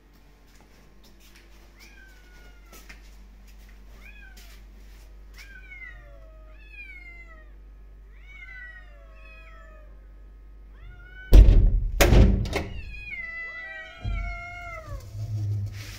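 Kittens meowing over and over outside a closed door, one call about every second. About eleven seconds in come two loud thunks and another near fourteen seconds as the door's latch is worked and the door opened, and the meows that follow are louder.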